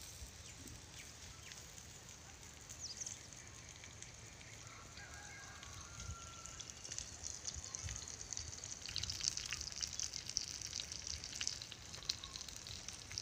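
Faint sizzling and crackling of masala-coated egg pieces frying in a pan over a wood fire, growing busier in the second half.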